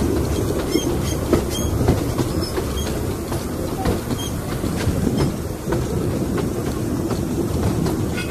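Narrow-gauge steam locomotive running along the track, heard from the footplate side: a steady rumble of wheels and running gear, with irregular clicks over the rail joints and brief high metallic squeaks.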